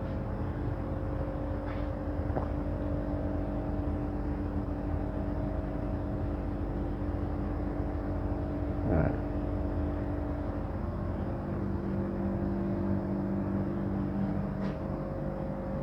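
Steady mechanical hum with several held tones, which shift slightly about two-thirds of the way through, and a brief faint sound about nine seconds in.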